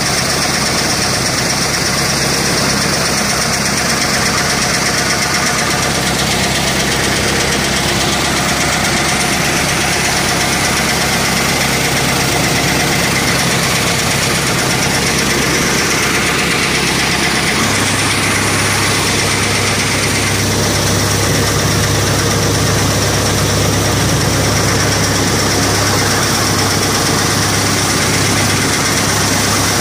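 Tractor-driven chaff cutter running while straw is fed into it: a steady engine drone mixed with the noise of the flywheel cutter and blower chopping and throwing straw. About two-thirds of the way through, the low hum shifts and grows stronger.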